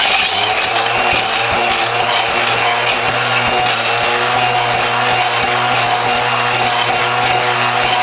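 Mighty Mill ore crusher running loud and steady as it pulverizes plastic electronic connectors to free their gold-plated pins, a steady hum and whine over a dense clatter; it starts abruptly.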